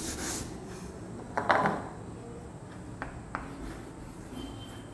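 Felt duster rubbing across a chalkboard at the start, then chalk knocking and scratching on the blackboard as a letter is written, with a few soft knocks and a brief louder scrape about a second and a half in.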